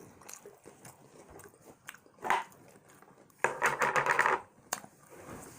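Close-miked chewing and crunching of fried chicken and fries, with a short loud burst a little over two seconds in. About three and a half seconds in comes a loud, buzzy, pitched sound lasting about a second.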